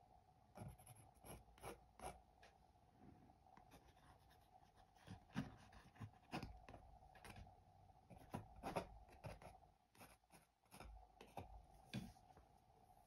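Palette knife scraping and dabbing thick paint onto a stretched canvas in short, irregular strokes, faint.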